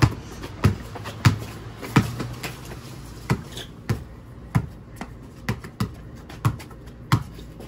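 A basketball being dribbled on brick pavers: a steady run of sharp bounces about every two-thirds of a second, coming a little quicker about five seconds in.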